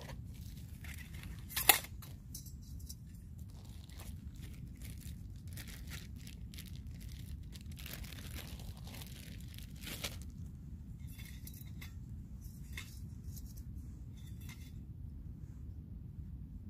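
Camp-stove gear being handled: metal stove parts and pot clinking and a plastic bag crinkling, in a run of short clicks and rustles over a steady low rumble, with one loud sharp clink about two seconds in.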